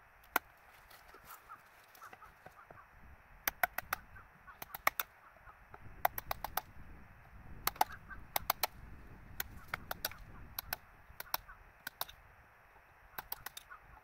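Hammer striking a chisel in quick runs of three to five sharp blows, with short pauses between the runs.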